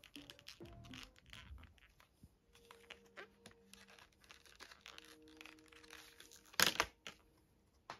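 Small plastic clicks, taps and scrapes as an iPhone is handled in the clear plastic alignment tray of a glass screen protector kit, with one louder sharp clack a little before the end. Faint soft music plays underneath.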